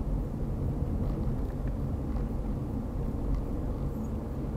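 Steady road and engine noise of a car driving at highway speed, heard from inside the cabin as an even low rumble.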